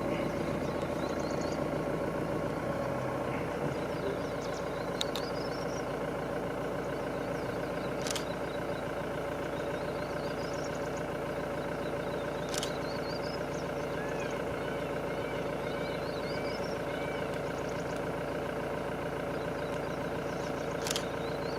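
Vehicle engine idling steadily, an even hum, with a few sharp clicks scattered through.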